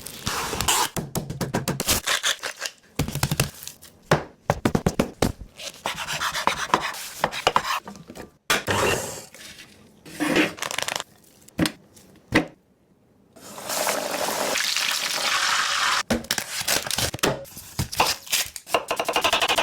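Cooking sounds: irregular clinks, taps and scraping of utensils against cookware, with a steady hiss lasting a couple of seconds about two-thirds of the way through.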